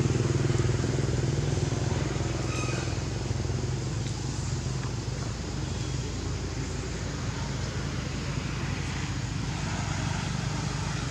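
An engine running steadily, with a low hum that is strongest at first and eases off over the first few seconds, over a steady hiss.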